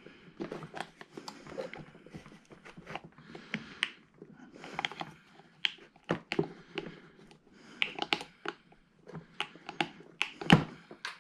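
Irregular light clicks, taps and rustles of hands and small tools working on a snowblower's recoil starter, refitting the staple that holds the pull cord, with one louder clack near the end.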